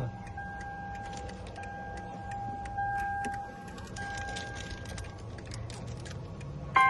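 Electronic beeper sounding a steady mid-pitched tone in long beeps of about a second each, with short gaps between them, while a new keyless fob is programmed to the car. Light clicks sound now and then.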